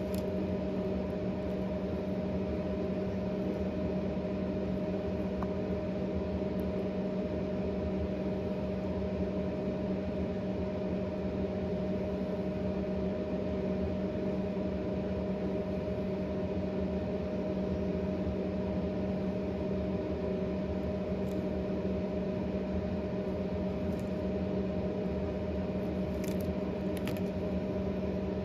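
A steady machine hum made of several fixed tones, running evenly throughout, with a few faint short clicks near the end.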